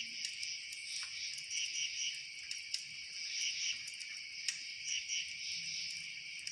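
A dense, steady chorus of crickets trilling high and pulsing, with a few sharp clicks scattered through it.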